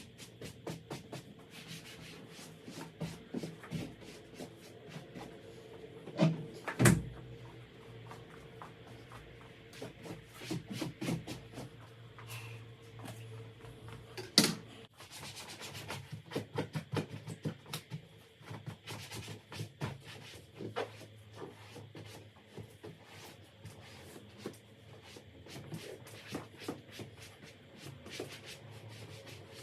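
A cloth wiping sofa upholstery in quick, irregular rubbing strokes, with two louder knocks about seven and fourteen seconds in and a faint steady hum underneath.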